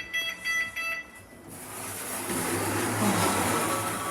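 Lift's electronic beeper sounding in rapid beeps that stop about a second in, followed by a rising rush of noise with a low hum from the lift in motion.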